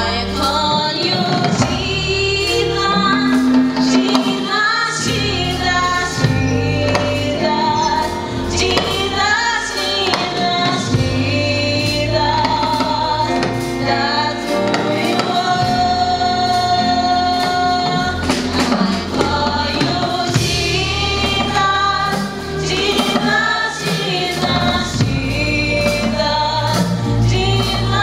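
A gospel choir of women's voices singing in harmony, accompanied by a live band with a drum kit keeping a steady beat.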